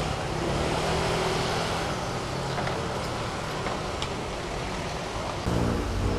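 City street traffic: cars running and passing, a steady mix of engine hum and road noise that gets louder near the end.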